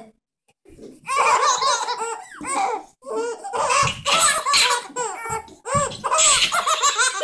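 Infant twins laughing in repeated bouts, starting about a second in, with short breaks between them.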